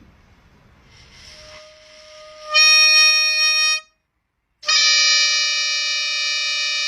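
Harmonica blowing two long held notes at the same pitch, each cut off sharply. A short breathy swell leads into the first note, which lasts about a second; the second lasts about two and a half seconds.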